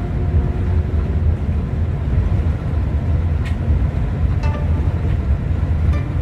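Steady low engine rumble of a moving vehicle, with a few faint short tones above it.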